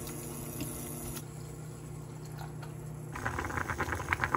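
Kimchi stew bubbling at a boil in a stainless pot: a dense, rapid popping that starts suddenly about three seconds in. Before it there is a steady low hum with a few faint taps.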